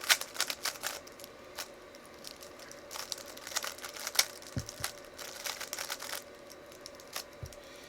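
A 3x3 Rubik's Cube being turned quickly by hand during a solve: flurries of rapid plastic clicking and rattling as the layers turn, with a quieter spell about two seconds in and a couple of dull knocks later on.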